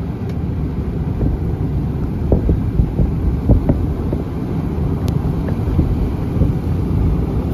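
Strong wind buffeting the microphone outdoors: a loud, low, gusting rumble that swells and dips irregularly.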